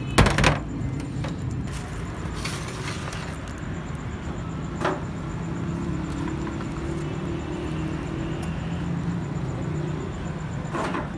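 Street-stall background noise: a steady low mechanical hum, with a sharp knock just after the start and a smaller click about five seconds in.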